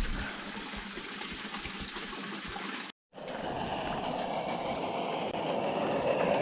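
Spring water running and trickling from a stone fountain outlet. About halfway through it cuts off abruptly and a louder steady rushing noise follows.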